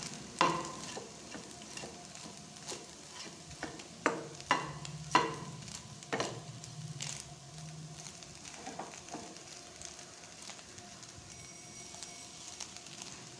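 Steel spoon stirring crumbly fried fish roe in a nonstick kadai, scraping through it with several sharp knocks against the pan, mostly in the first half, over a light sizzle from the still-hot pan.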